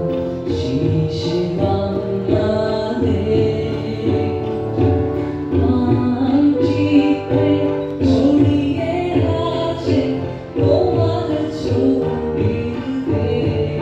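A song: singing with long held notes over instrumental accompaniment.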